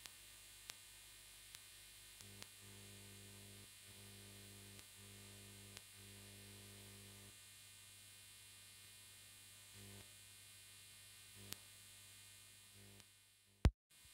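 Faint steady electrical hum with a few soft clicks, and one sharp click just before the end.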